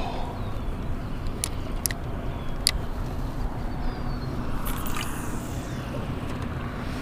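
A boat motor running steadily with a low rumble, and a few sharp clicks in the first three seconds.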